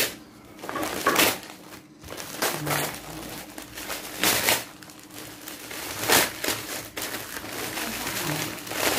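Gift wrapping crinkling and rustling as it is torn open by hand, in several short bursts: about a second in, at about four and six seconds, and again near the end.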